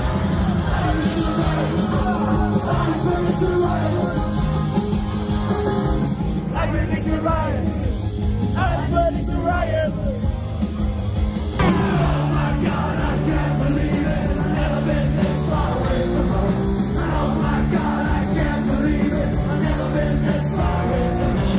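Loud live rock music with singing, heard from within a festival crowd, with yells from the crowd. The music changes abruptly to a different passage about twelve seconds in.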